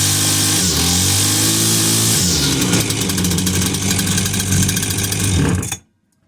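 Husqvarna brush cutter's two-stroke engine running with the choke off, its speed dipping and wavering for the first couple of seconds, then running more evenly before cutting off abruptly shortly before the end. The machine had not started after sitting unused all winter and has just been brought back to life.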